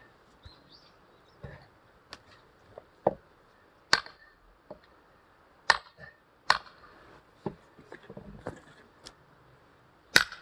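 Axe chopping firewood by hand: sharp wooden strikes at irregular intervals, about five loud blows with lighter knocks between them, the loudest near the end.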